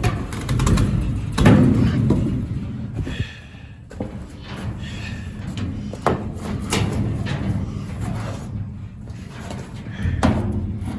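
A wooden 2x4 being shoved and knocked down into a gap between old wooden trailer floor boards: a series of knocks and thuds, the loudest about a second and a half in.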